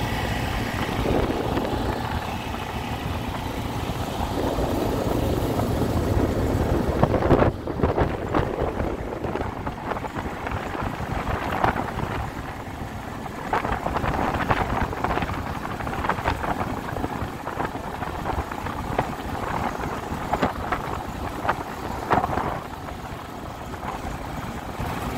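ATV engine running while riding, with wind on the microphone. From about seven seconds in, the sound changes to a rough crackle as the tyres roll over loose gravel.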